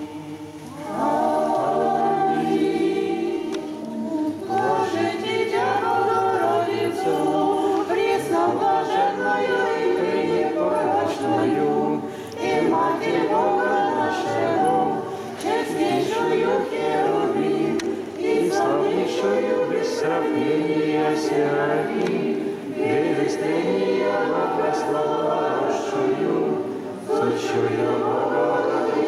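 Unaccompanied choir singing an Orthodox church hymn, beginning about a second in and carrying on throughout.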